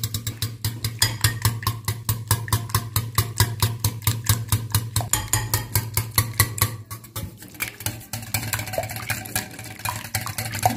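A wire whisk beats eggs in a glass bowl, its wires clicking against the glass about four or five times a second. The eggs are being whisked until the yolks blend smoothly into the whites. About seven seconds in, the clicking becomes softer and less regular, over a steady low hum.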